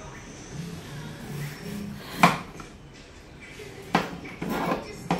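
Kitchen knife cutting broccoli on a plastic cutting board: a sharp knock of the blade on the board a little past two seconds in, the loudest sound, then two more knocks with rasping cuts through the stalk near the end.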